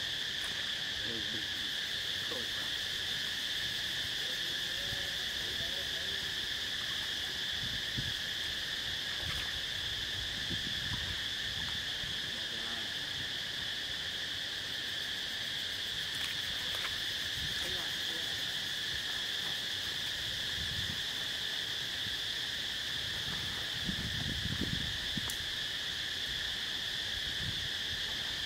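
A steady insect chorus, a shrill drone held on two high pitches without a break.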